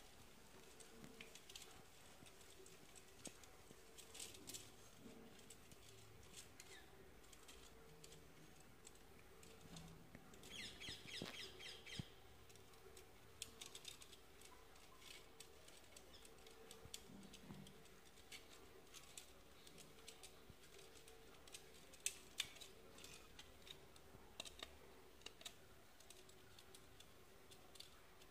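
Faint, scattered small clicks and ticks of a plastic electrical switch plate and its wires being handled and fitted. About ten seconds in, a bird chirps briefly several times.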